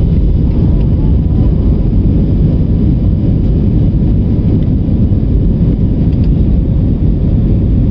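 Steady, loud low rumble of an airliner's jet engines and rushing air, heard from inside the passenger cabin during the climb after take-off.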